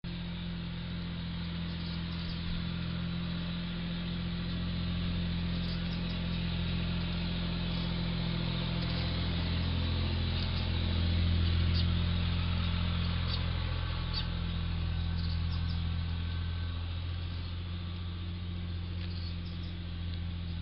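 A steady low hum that swells a little about halfway through and eases off again, with faint, short, high chirps of small birds scattered through it.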